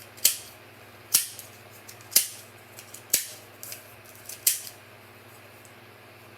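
Plastic rainbow ball twisty puzzle clicking as it is turned: five sharp clicks about a second apart, with faint ticks between, stopping a little over halfway through.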